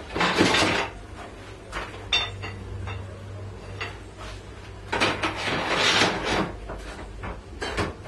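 Metal tubing and tools being handled on a wooden workbench: clinks and clatters, with two longer bouts of noisy handling, one at the start and one about five seconds in, over a low steady hum.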